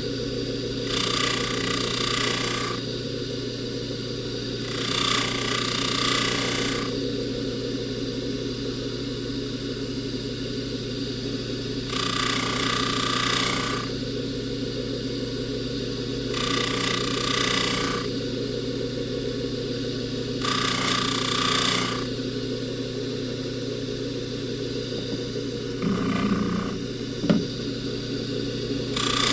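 Jeweler's polishing buffer motor running with a steady hum. About seven times, for a second or two each, a hissing rub rises over it as a gold chain is pressed against the spinning buffing wheel. There is a single click near the end.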